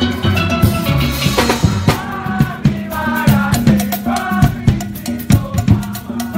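Steel band playing live: many steelpans sounding pitched melody and chords over a drum kit keeping a steady beat.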